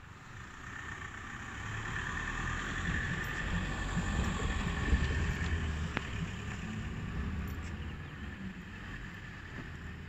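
A road vehicle passing: its engine and tyre noise swells over the first few seconds, peaks about five seconds in, then fades away. A sharp click is heard about six seconds in.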